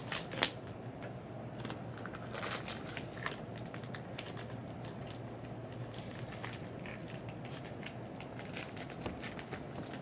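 Scattered crackling and rustling with occasional sharp clicks, loudest near the start, over a steady low hum.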